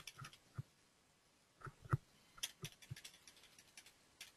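Faint, irregular clicking and tapping of a computer mouse and keyboard: a few separate clicks, then a busier run of light clicks from about halfway on.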